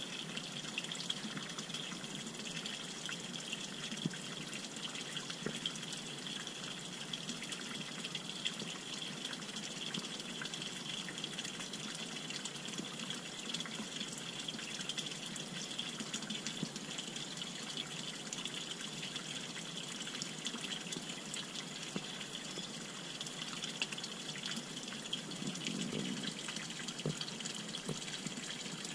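Water pouring from a pipe into a small fish pond, a steady splashing trickle.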